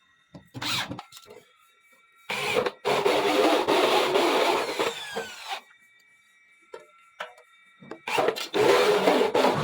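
Homemade clothes-drying machine running in two bursts of rough mechanical rattling and whirring: one lasting about three seconds from a couple of seconds in, the second starting near the end, with a few clicks in between.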